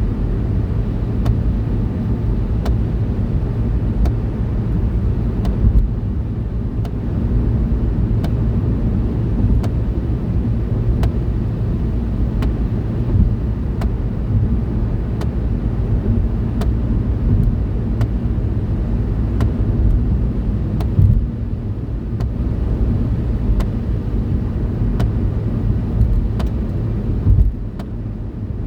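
Steady low road and engine rumble heard inside a moving car's cabin at motorway speed, with faint light ticks over it.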